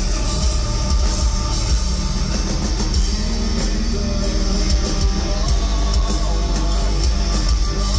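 Loud rock music with guitar and drums, running steadily.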